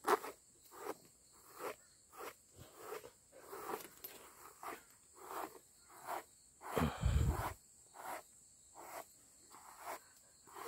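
A grooming brush raking through a Border Collie mix's long black coat in short, scratchy strokes, about one to two a second, with a louder dull thump about two-thirds of the way through.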